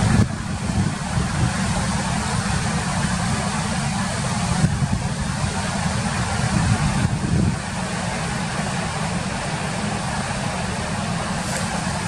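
Mountain stream rushing over rocks in white-water rapids: a steady, loud rush with a deep rumble underneath. The sound shifts slightly a few times.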